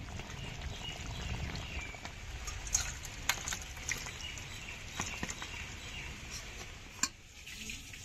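A few sharp metal clinks and scrapes of a pan and serving spoon against a steel bowl as fish curry is poured in, over a low, steady background hiss.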